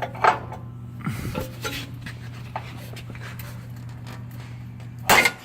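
A wrench working the knock-sensor hold-down nuts: scattered metallic clicks and scrapes, and a loud clunk near the end, over a steady low hum.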